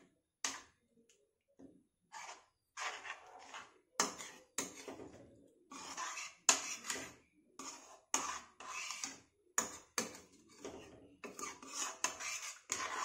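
A metal spoon scraping and clinking against a metal kadhai in irregular strokes while stirring a thin, watery lentil dal, mixing in water that has just been added.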